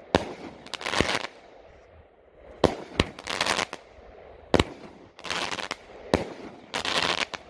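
Competition Fireworks Grape Soda, a small 7-shot consumer cake, firing: several sharp bangs a second or so apart, each followed by about half a second of crackle from the burst.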